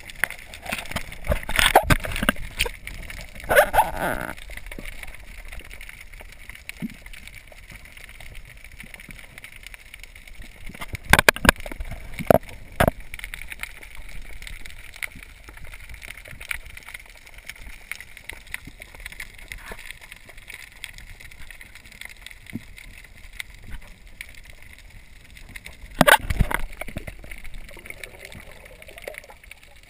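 Underwater ambience heard through a camera's waterproof housing: a steady faint crackling of tiny clicks, broken by loud rushing bursts of water movement and knocks near the start, about eleven seconds in and near the end, where a snorkelling diver's bubbles rise.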